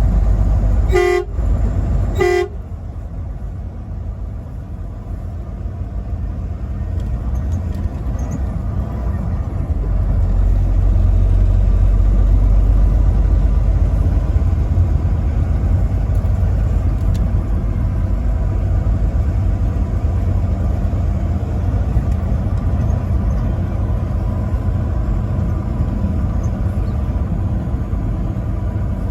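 Truck horn giving two short toots about a second apart, over the steady low rumble of the truck driving. The rumble grows louder over the following several seconds.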